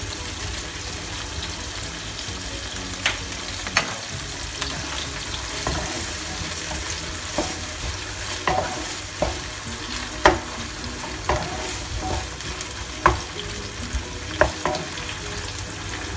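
Ground pork with onion, garlic and ginger sizzling steadily in oil in a nonstick frying pan, stirred with a wooden spatula that scrapes and knocks against the pan at irregular moments.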